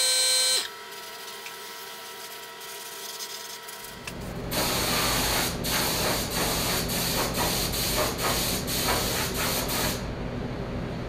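Air-fed paint spray gun hissing in passes from about four seconds in, with brief breaks where the trigger is let off; the hiss turns duller near the end. Before it, a loud steady whine cuts off abruptly within the first second.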